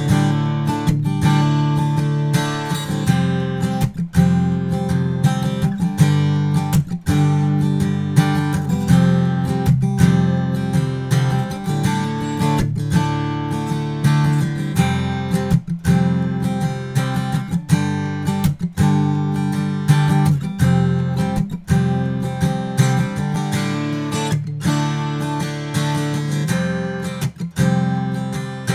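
Acoustic guitar playing chords with regular strokes, recorded through a TechZone Audio Stellar X2 large-diaphragm condenser microphone with no effects added.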